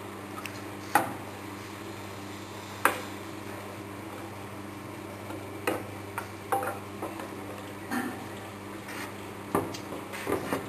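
Papad dough extruder running with a steady low electric hum. Irregular sharp clicks and knocks come every second or two as dough is pushed into its steel hopper and the extruded strip is handled.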